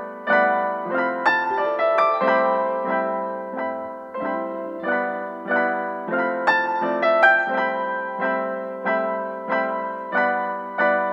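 Background piano music: an even run of struck notes and chords, each one fading before the next.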